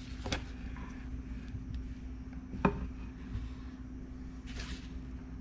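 Quiet room tone: a steady low hum with faint hiss, broken by a few small handling clicks and a brief rustle about four and a half seconds in.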